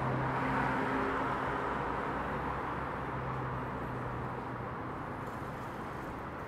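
Street traffic: a passing motor vehicle's engine hum and tyre noise, fading away gradually.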